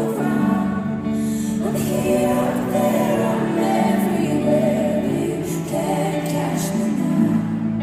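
A live pop performance: a female lead singer and backing singers singing together in harmony, holding long notes over a band.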